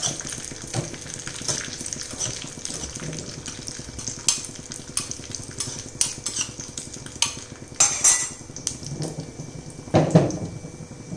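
Cashews and raisins sizzling as they fry in ghee in a small pan, with a steel spoon stirring and clinking against the pan. About ten seconds in comes a louder burst as the pan is lifted off the burner toward the pot.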